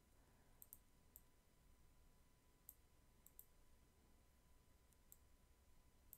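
Near silence with faint, scattered computer mouse clicks, about nine in all, over a quiet steady hum.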